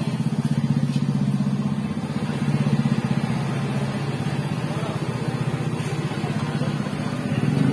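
An engine idling steadily, a low, rapidly pulsing hum.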